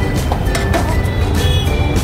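Background music with sharp clicks now and then.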